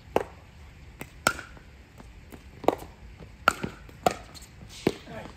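A pickleball rally: paddles hitting the plastic ball with sharp pops, about eight in five seconds, unevenly spaced.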